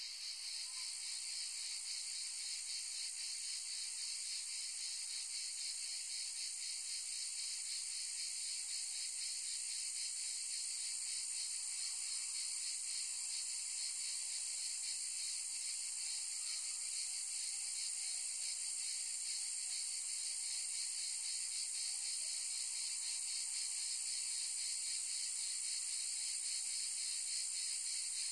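A steady, high-pitched insect chorus, a dense shrill with a fine rapid pulse that never lets up.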